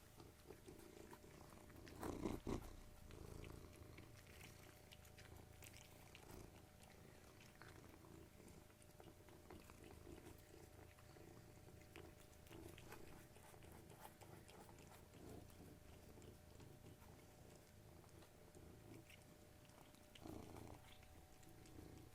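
A domestic cat purring faintly and steadily, with scattered small clicks and a louder burst about two seconds in and again near the end.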